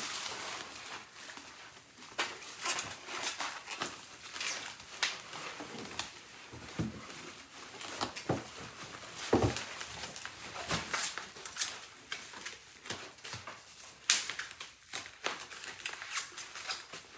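Plastic bubble wrap rustling and crinkling in irregular crackles as it is pulled off a wrapped present, with a few sharper cracks, the loudest about nine and a half and fourteen seconds in.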